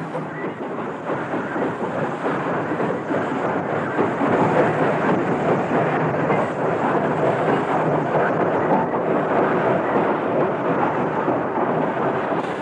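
Steam rack locomotive working hard up a steep rack incline at walking pace: a steady, dense exhaust roar with no separate beats.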